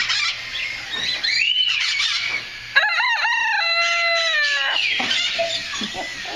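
Rooster crowing once, about three seconds in: a few short choppy notes, then a long held note that falls slightly in pitch over about two seconds. Other birds squawk and call around it.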